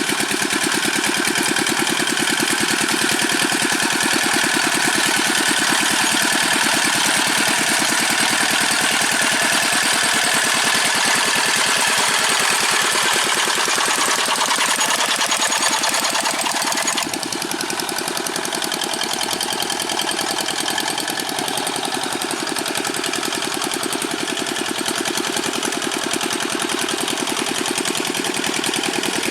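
Single-cylinder Dongfeng diesel of a Quick G600 hand tractor running steadily, with a rapid, even knock from its firing strokes. It gets slightly quieter about two thirds of the way through.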